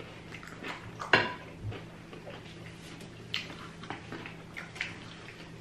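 Close-miked eating sounds: chewing and mouth noises with scattered light clicks of a fork against food and plate, the sharpest click about a second in.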